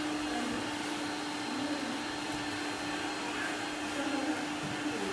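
Vacuum cleaner running steadily, a constant hum over an even hiss.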